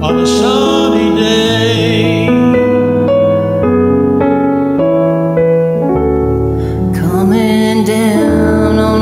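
Karaoke duet singing over a piano-led backing track: a sung line at the start, then a few seconds of keyboard chords alone, and the voices come back in near the end.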